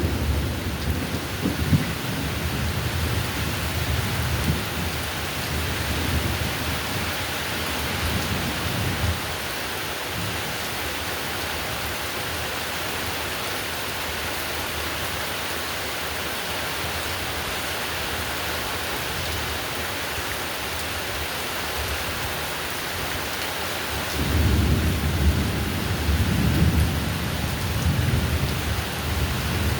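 Heavy rain falling steadily, with low rolling thunder rumbling at the start that fades away within about nine seconds, and another roll of thunder starting near the end.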